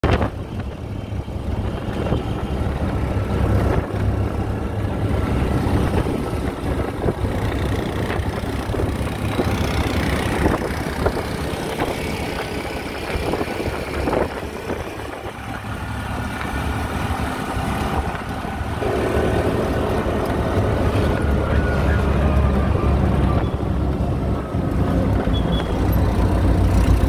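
Engine running and road noise, heard from inside a moving open-sided, canvas-roofed auto-rickshaw (bajaji): a steady low rumble with a rapid pulse.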